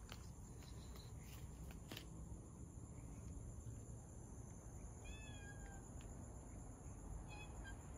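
Domestic cat meowing faintly twice: a longer meow falling in pitch about five seconds in, and a short one near the end.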